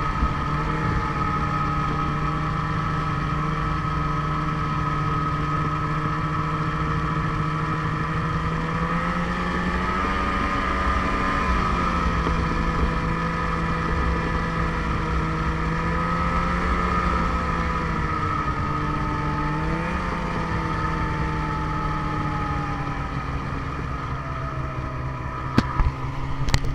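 Ski-Doo snowmobile engine running at a steady cruising speed, its pitch easing up and down gently a couple of times with the throttle. Two sharp knocks come near the end.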